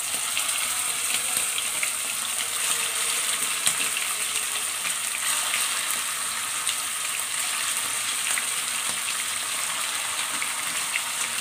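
Chicken pieces frying in hot oil in a kadai, a steady sizzle with many small crackling pops, as more pieces are set into the oil one at a time.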